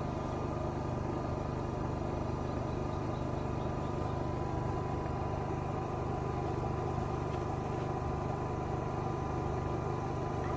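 A steady mechanical hum of a running motor, unchanging in level, with a constant whine on top.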